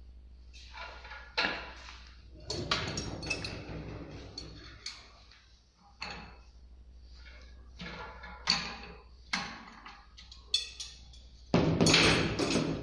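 Car strut coil spring compressor being worked: irregular metallic knocks and clanks, with a louder, longer clatter near the end.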